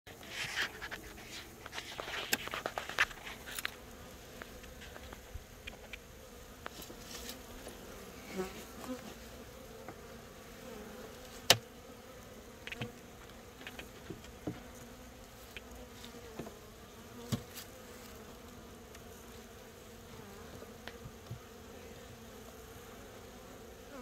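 Honeybees buzzing steadily as a hum from an opened hive. Over it come sharp clicks and knocks of hive parts being handled, thickest in the first few seconds, with one sharp knock about halfway through.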